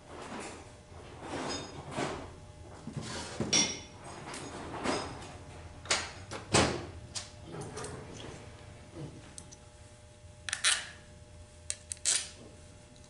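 Irregular metallic clinks and knocks of hand tools and bolts being handled during transmission assembly, a few with a short ringing tone; the loudest knock comes a little past the middle.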